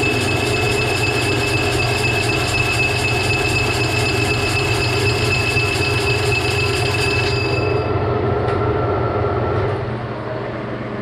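Metal lathe cutting a spinning faceplate blank, the tool making a steady high ringing squeal over the machine's running noise, cutting fast enough to throw hot chips. About seven and a half seconds in the high ring stops, and the sound drops lower near the end.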